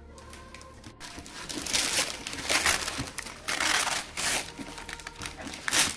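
Gift wrapping paper being torn open and crumpled, in a run of rustling, tearing bursts that start about a second in.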